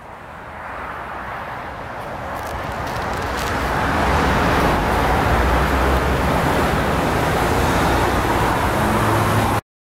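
A steady rumbling noise that swells over the first four seconds, holds, and cuts off abruptly near the end.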